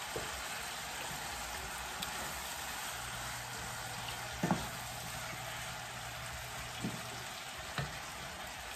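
Ground meat and butter sizzling steadily in a cast-iron skillet, with a few short knocks as sliced mushrooms are tipped in and stirred with a wooden spoon.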